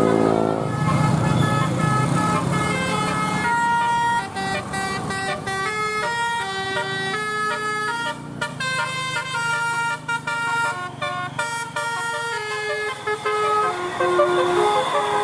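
Bus 'basuri' telolet horn playing a tune, a quick run of short notes stepping up and down, with the bus engine running underneath.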